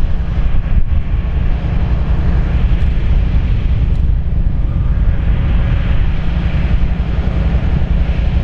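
A train rolling past: a BNSF ES44C4 diesel locomotive and the geometry cars behind it, with a steady rumble and the hiss of wheels on rail that grows a little louder about halfway through. Heavy wind buffets the microphone throughout, making a loud low rumble.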